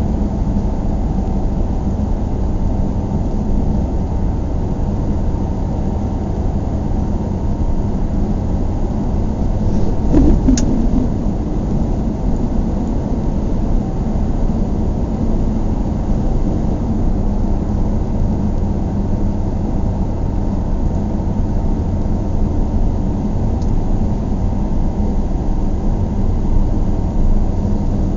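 A car driving in the rain, a steady low rumble of tyres and engine heard from inside the car, with a single brief knock about ten seconds in.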